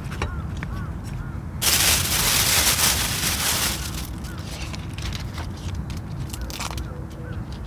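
A crackling plastic rustle lasting about two seconds, starting about one and a half seconds in, as a lettuce leaf is pulled out of a plastic bag. Lighter handling rustles and taps follow as the leaves are laid on a tortilla.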